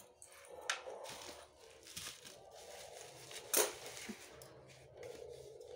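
Plastic bubble-wrap packaging crinkling and rustling as it is handled, with a few sharp crackles, the loudest about three and a half seconds in.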